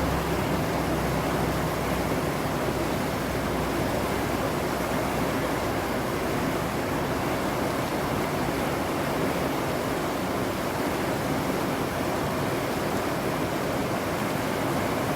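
Flowing water rushing steadily, an even unbroken noise with no change in level.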